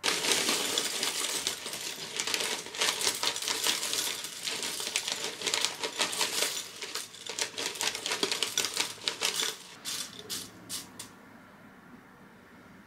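Cereal flakes poured from a plastic bag into a glass mug: a dense crackle of rustling plastic and flakes dropping onto the pile. It thins to a few last clicks about ten seconds in.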